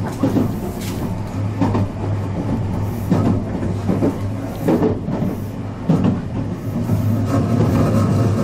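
Meitetsu limited express train running at speed, heard inside a passenger car: a steady low hum and rumble from the running gear and wheels on the rail, broken by irregular knocks and clatters.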